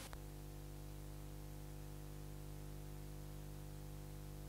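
Steady electrical mains hum with faint hiss, the background noise of an old film soundtrack, with no other sound.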